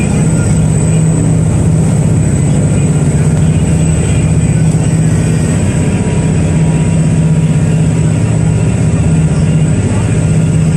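Steady low drone of a SuperCat high-speed catamaran ferry's engines, heard from inside the passenger cabin while underway, with a thin high whine over it.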